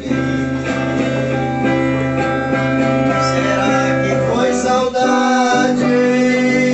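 Les Paul-style electric guitar played through a small amplifier, its chords held and ringing out long, with a change of chord about four and a half seconds in.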